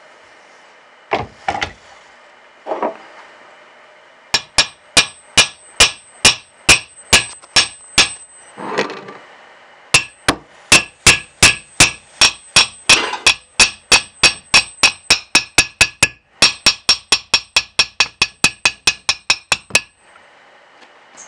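Hammer blows on a heated cast-iron Triumph T120 cylinder barrel, striking to drive out a stuck part. A few scattered knocks come first, then a run of sharp, ringing metallic blows at about two a second, and after a brief pause a longer, faster run at about three a second.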